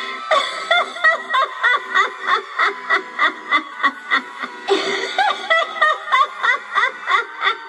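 Spirit Halloween Harriet Hustle animatronic clown playing its soundtrack: a high-pitched giggling laugh over music with a quick, even beat of about four a second.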